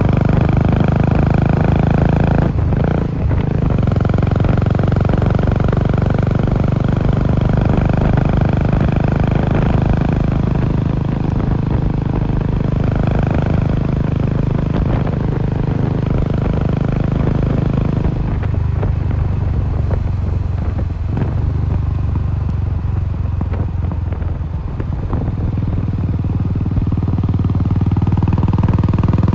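Royal Enfield Classic 350's single-cylinder engine running through a Cobra aftermarket silencer while riding, a steady low thudding exhaust note. The note eases off for several seconds past the middle, then picks up again near the end.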